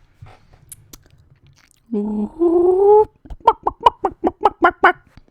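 A person imitating a chicken with their voice: a drawn-out, slightly rising call, then a quick run of about eight short clucks.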